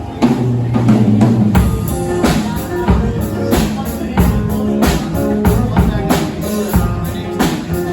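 Live guitar-and-drums band playing: guitar chords ring out at the start, and the drum kit, with kick drum and cymbals, comes in with a steady beat about a second and a half in.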